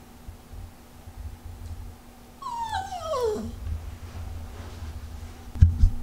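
Yorkshire terrier giving one whimpering whine that falls steadily in pitch, about halfway through. A thump near the end is the loudest sound.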